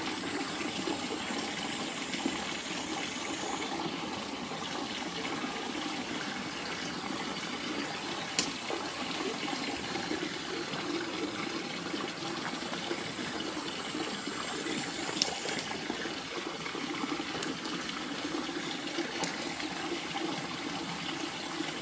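Steady rush of running water, even throughout, with two sharp clicks, one about eight seconds in and one about fifteen seconds in.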